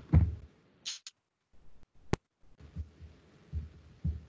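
A single sharp click about two seconds in, with a few fainter ticks before it and faint low thumps later, over quiet room tone.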